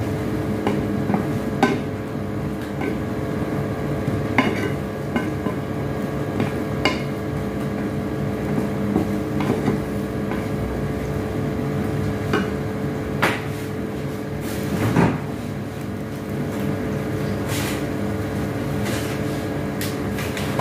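Wooden spatula stirring and scraping food in a nonstick pot on the hob, with a light sizzle and scattered knocks of the spatula against the pot, over a steady hum.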